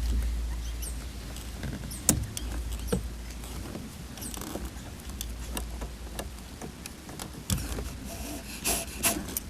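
Small hand tools clicking and scraping on metal, picking broken bits of the old pot-metal aluminium heater hose fitting out of the intake manifold's threads, with scattered sharp clicks and a cluster of them near the end. A low rumble runs underneath, strongest at the start.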